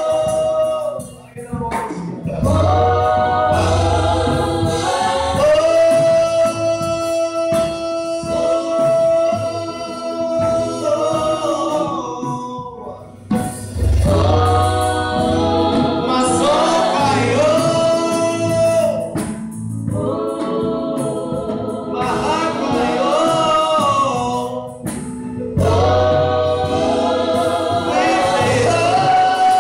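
Gospel singing: several male and female voices singing into microphones over an amplified sound system, with long held notes and low bass notes underneath.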